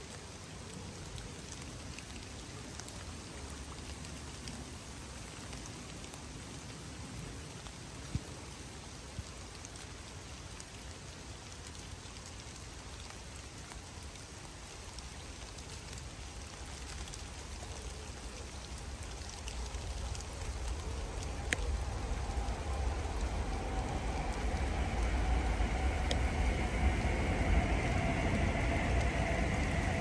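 Steady rain falling on a river's surface and the foliage along its banks, with a few separate drop clicks. A low rumble with a faint hum builds over the last third and becomes the loudest sound.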